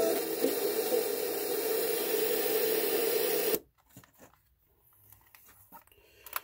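Sony Walkman WM-AF23 radio hissing with static as the tuning dial is turned off a station; the hiss cuts off suddenly about three and a half seconds in, leaving only a few faint clicks from handling the player.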